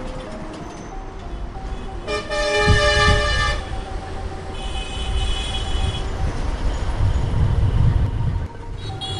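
Vehicle horns honking over a low road-traffic rumble, with music underneath. The loudest is a long honk about two seconds in; a thinner, higher honk follows a couple of seconds later.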